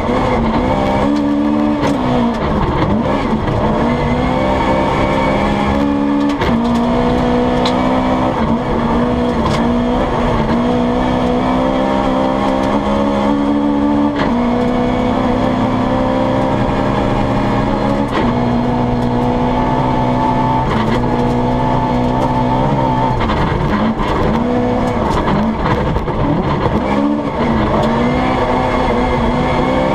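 Toyota Corolla GT rally car's engine heard from inside the cabin, running hard at high revs. Its pitch holds steady, then steps and swoops up and down every few seconds as the driver changes gear and lifts off for corners.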